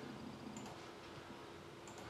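Quiet room tone with a faint steady hum and two faint ticks, one about half a second in and one near the end.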